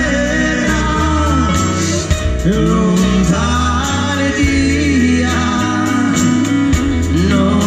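Live band playing a traditional-style folk song, with guitars, bass and drums under singing.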